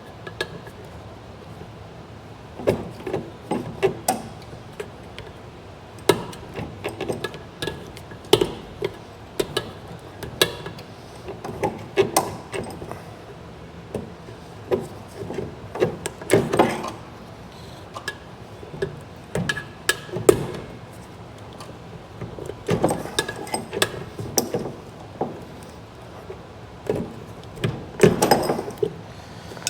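Hand-tool work on Humvee parts: irregular clinks, taps and knocks of tools against metal, some coming in quick clusters.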